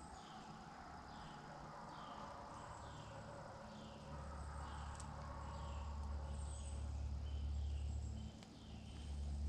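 A steady series of short, high, falling chirps, about two a second, from a small animal in the woods, over a low rumble that swells about halfway through.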